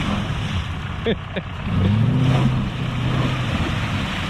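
An off-road vehicle's engine revving in surges as it rocks forward and back to get unstuck from mud, with its tyres spinning and churning through mud and water.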